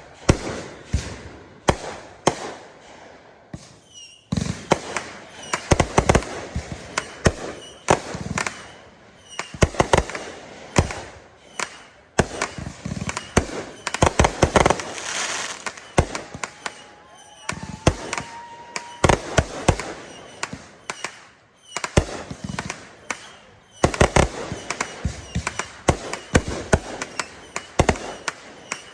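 A fireworks display of 500 g cakes and 3-inch aerial shells going off, many sharp booms and bangs in quick, irregular succession with crackle between them and no let-up.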